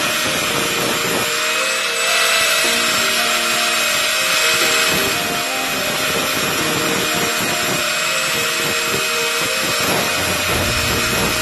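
Electric angle grinder running with a steady whine while its abrasive disc grinds rust off a steel motorcycle side stand, a continuous grinding hiss over the motor.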